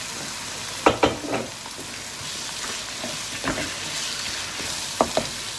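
Raw chicken pieces sizzling as they fry in onion-tomato masala in a nonstick wok, stirred with a wooden spoon. The spoon knocks against the pan a few times, loudest about a second in and again near the end.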